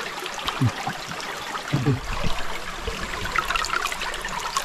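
Shallow river water running and trickling steadily.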